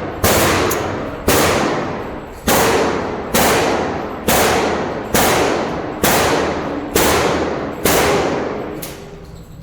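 Gunshots fired at a steady pace of about one a second, ten in all, each with a long echoing tail; the last one, near the end, is fainter.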